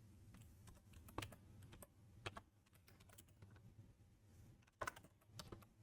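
Faint, sparse typing on a computer keyboard: a handful of isolated key clicks, a few of them close together near the end.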